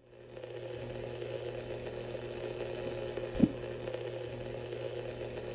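Steady electrical hum with a faint static hiss, fading in at the start, with one short low thump about three and a half seconds in.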